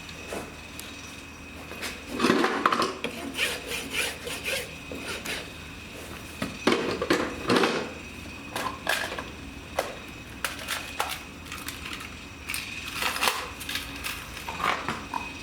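Farrier's hand tools scraping and rubbing on a horse's hoof in irregular strokes, with light clicks and clinks, the loudest strokes about two and seven seconds in.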